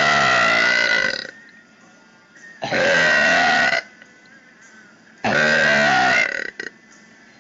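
A woman's deliberate, loud burps: three long, pitched belches in a row, each lasting a second or more, the first already under way at the start and the third ending in two short blips.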